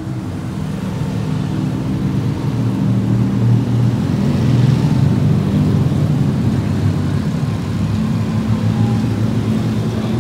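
A procession of tuk-tuks (motorised auto rickshaws) driving past close by, their small engines running with a steady droning hum that swells a little as the nearest ones pass.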